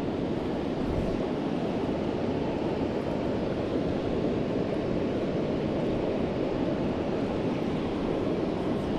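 Steady rushing of flowing river water, an even hiss with no changes.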